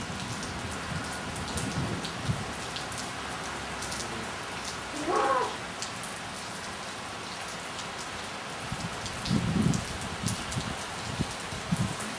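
Heavy thunderstorm rain falling steadily, a constant hiss of rain on surfaces. A short rising pitched sound comes about five seconds in, and a few low thumps follow near the end.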